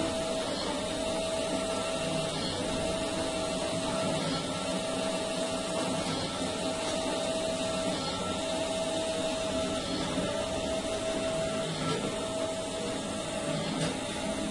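Automatic lamp wick making machine running: a steady motor hum whose pitch dips briefly about every two seconds as the machine cycles.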